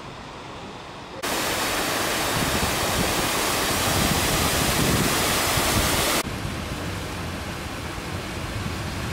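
Water from a large fountain pouring over the rim of its bowl and splashing into the basin below: a loud, even rush that starts abruptly about a second in and cuts off abruptly after about five seconds, with a quieter outdoor wash on either side.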